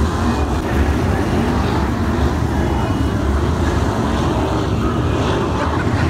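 A field of winged sprint cars running on a dirt oval, the engines droning loud and steady.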